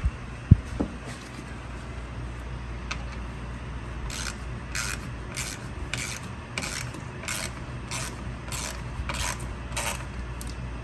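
A ratchet wrench being swung back and forth to run a fastener down, about nine short ratcheting strokes, about one and a half a second, starting a few seconds in. Two sharp knocks at the very start, the second one the loudest sound.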